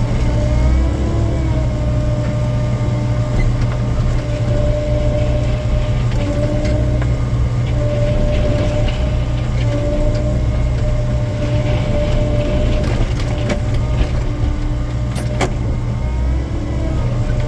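Hydraulic excavator's diesel engine running steadily under load with a high hydraulic whine that shifts in pitch as the bucket is worked, with scattered scraping clicks and one sharp knock near the end.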